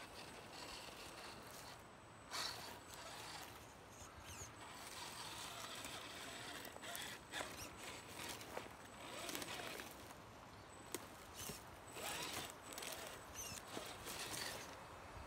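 Gen 8 radio-controlled scale rock crawler working slowly over rocks and leaf litter: irregular scrabbling, clicks and knocks from its tyres and drivetrain. Footsteps crunch in the leaves now and then.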